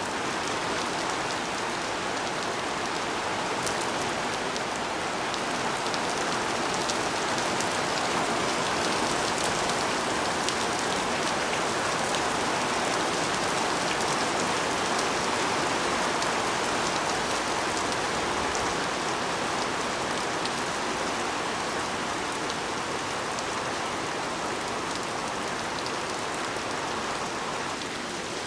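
Steady rain falling and pattering on surfaces, with a few faint drop ticks over the even hiss.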